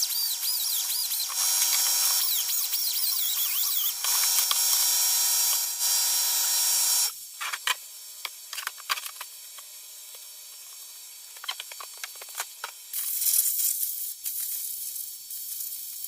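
A small high-speed power tool, a drill or rotary tool, runs with a high whine whose pitch wavers under load. It stops about seven seconds in, leaving a few clicks and knocks of handling, then runs again briefly near the end.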